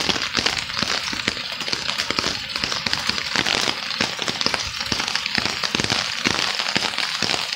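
Heavy rain falling: a steady, dense crackle of drops hitting hard surfaces close by.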